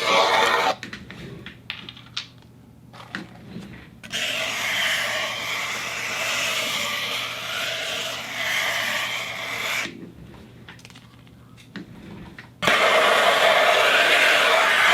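Turntable sound effects: a record's music breaks off less than a second in, leaving faint clicks. A stretch of wavering, scraping sound runs from about four to ten seconds, and after another quiet gap the music comes back loud near the end.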